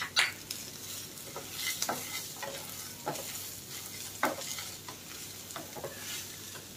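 Wooden spatula stirring and scraping onions, dal and peanuts around a nonstick frying pan, over a soft sizzle of frying oil. The scrapes and knocks come irregularly about once a second, the loudest near the start and again about four seconds in.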